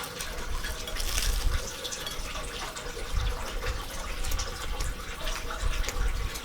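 Someone eating close to the microphone: wet chewing with many small clicking mouth sounds.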